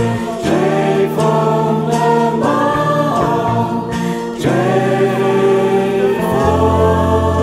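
A song's closing bars: several voices singing long held notes over an accompaniment with a steady low bass.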